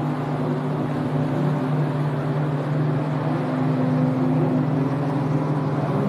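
Jet ski engine running steadily as the craft speeds past across the water.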